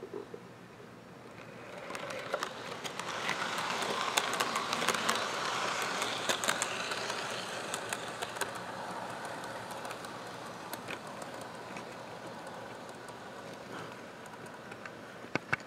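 Model passenger train rolling past on its track: a rolling clatter of metal wheels with many sharp clicks that swells about two seconds in, is loudest a few seconds later, then slowly fades as the cars go by.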